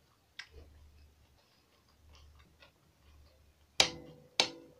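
Metal fork clinking twice against the plate, about half a second apart near the end, each strike ringing briefly. Fainter soft clicks come before.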